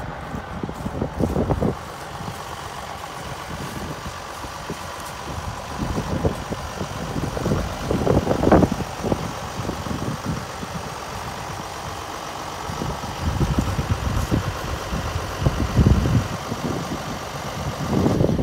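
2004 John Deere 7420 tractor's six-cylinder diesel engine idling steadily, with gusts of wind buffeting the microphone.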